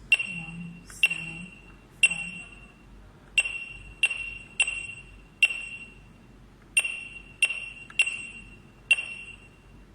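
GSM alarm control panel's keypad beeping once for each key pressed as a phone number is entered: about eleven short, high, ringing beeps at uneven spacing, roughly one every half second to second and a half.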